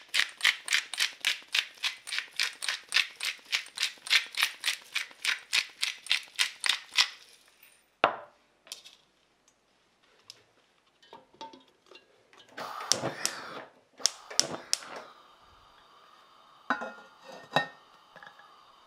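Salt mill twisted by hand over raw potatoes, a quick even clicking about five times a second that stops about seven seconds in. Later, metal clatters as a stainless steamer insert and an enamelled cast-iron lid are set on a pot, then two light knocks.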